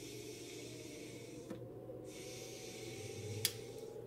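Quiet puffing and breathing of a pipe smoker drawing on a freshly lit pipe: a soft hiss of air that pauses briefly about one and a half seconds in, with a small click a little after three seconds.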